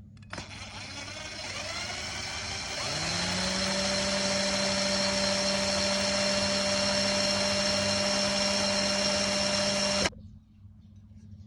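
A small electric motor spinning up, its pitch rising for about three seconds, then running at a steady speed before cutting off suddenly about ten seconds in.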